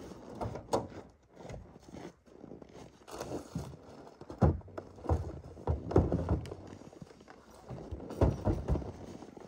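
Boots crunching on packed snow with a series of knocks and thumps as bags and gear are handled at a pickup truck's open tailgate.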